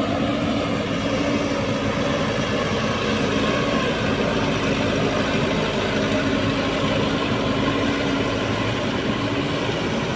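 JCB 3DX backhoe loader's diesel engine running steadily as the machine drives across the dirt.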